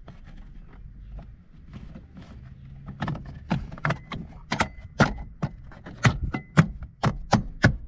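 Plastic battery cover in the floor being pressed down and knocked into place by hand: a quick run of sharp plastic clicks and knocks, about three a second, starting about three seconds in.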